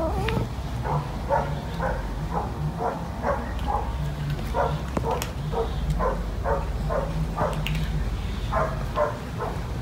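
An animal giving short, repeated calls, each sliding down in pitch, about two to three a second, over a steady low hum.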